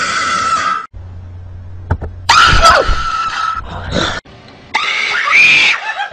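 Children screaming in fright: several loud, high screams one after another, each breaking off abruptly.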